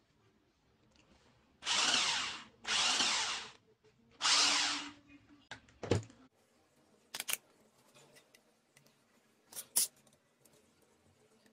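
Small battery-powered electric motor of a homemade toy truck whirring in three short runs of about a second each as its switch is flicked on and off. A knock follows about six seconds in, then a few light clicks.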